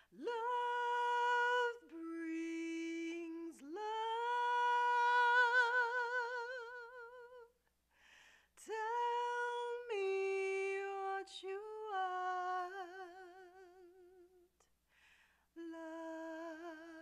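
A woman singing a cappella: long held, wordless notes with a wide vibrato, stepping between a few pitches in phrases separated by short breaths, with a longer pause of about two seconds near two-thirds of the way through.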